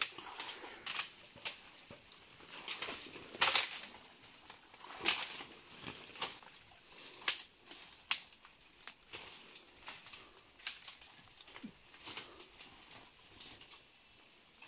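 Irregular rustling and crackling of people pushing on foot through undergrowth, leaves and twigs, with louder crunches about three and a half and five seconds in.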